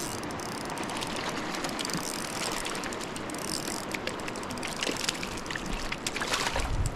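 Spinning reel being cranked with rapid ticking as a hooked trout is reeled in, over the steady rush of river water.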